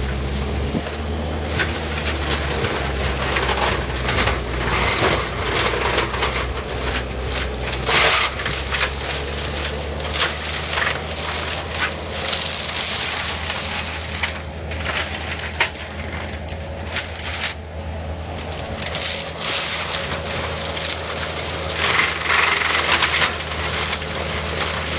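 Compact track loader's diesel engine running steadily under load while its drum brush mulcher shreds brush and small trees, with constant irregular crackling and splintering of wood. The shredding grows louder about eight seconds in and again near the end.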